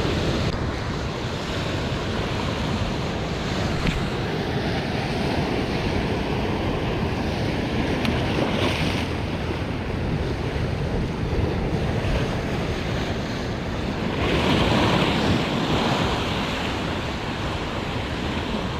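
Ocean surf breaking and washing up a beach, with wind rumbling on the microphone. The wash swells louder about halfway through and again, longer, about three quarters of the way in.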